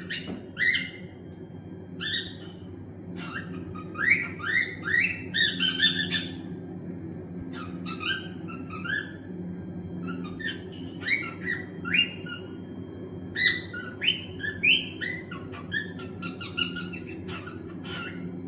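Cockatiels chirping in quick clusters of short notes, with pauses between the bursts, over a steady low hum.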